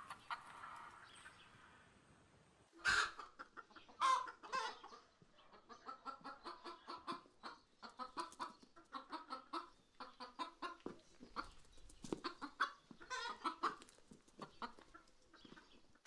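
A chicken clucking: two louder squawking calls about three and four seconds in, then a steady run of short clucks, two or three a second.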